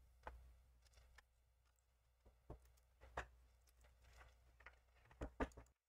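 Faint, scattered small clicks and ticks, about a dozen, strongest near the end, from gloved fingers pressing and prying at the edge of a laptop's touch LCD panel held in by adhesive tape.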